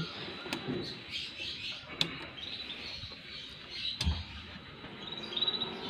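Power switch of a homemade stereo power amplifier being pressed on: a few light clicks, the loudest about four seconds in with a low thump. Small birds chirp in the background throughout.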